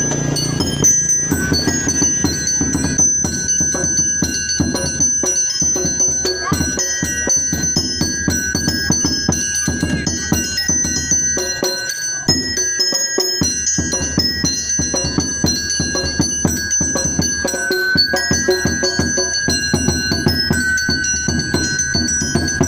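Music with bright mallet-percussion notes, like a metallophone or xylophone, over a fast, steady drum beat. It drops out briefly about halfway through.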